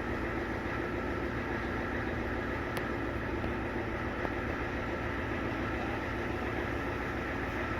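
Diesel truck engine idling steadily, with one short click about three seconds in.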